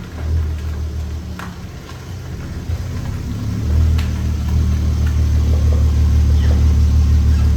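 Audi TT 3.2's VR6 engine running with a low exhaust drone, which grows louder about three seconds in and then holds steady under load.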